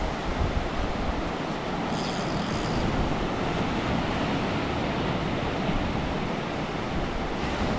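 Surf washing onto the beach in a steady rush of noise, with wind rumbling on the microphone.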